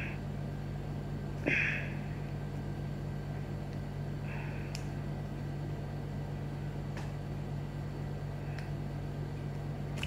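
Steady low hum, with a few soft clicks and rustles of small plastic and card parts as discs are loaded into a toy disc launcher.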